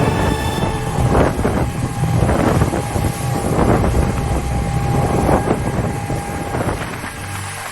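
Boat engine running underway, with wind buffeting the microphone and repeated surging washes of water noise about once a second.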